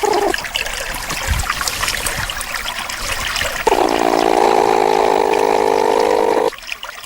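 Water bubbling and trickling with many small pops. About halfway through, a louder low gurgle joins in for roughly three seconds and cuts off suddenly.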